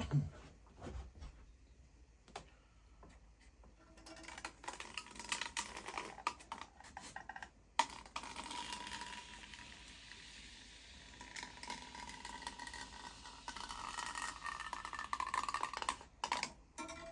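Handheld hot foam cutter slicing through a block of expanded polystyrene: a long, rough crackling scrape that starts about four seconds in and stops shortly before the end, with a few handling clicks before it.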